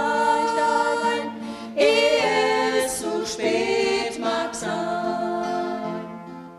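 Trio of women singing in harmony, holding long notes, the sound dropping away near the end.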